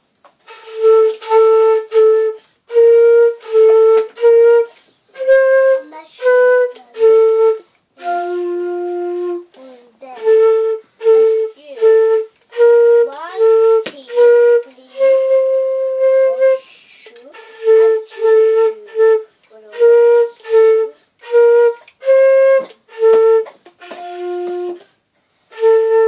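Concert flute playing a simple melody, solo. It is a string of short, separated notes, mostly repeating around one pitch, with a few longer held notes and short breaks between phrases.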